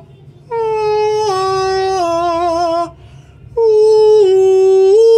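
A man singing long held open vowels in a high voice, demonstrating the correct mouth shape for singing. Two phrases, each stepping down in pitch; the first wavers at its end and stops about three seconds in, and the second follows a moment later.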